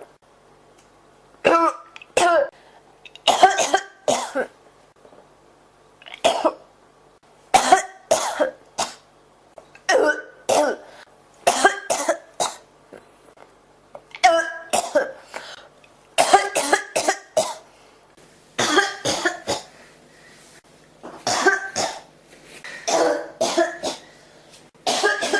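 A person coughing over and over in a fit that won't stop: short groups of two or three coughs, a group every second or two, with brief quiet gaps between.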